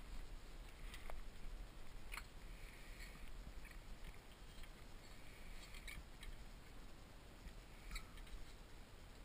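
Faint, scattered light clicks and rustles of small wooden automaton parts being handled.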